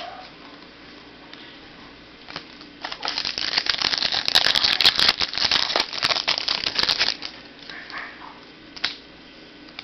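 Crinkling and rustling of trading cards and their packaging being handled close to the microphone, with a few scattered clicks, then a dense burst of crackling and clicking for about four seconds in the middle.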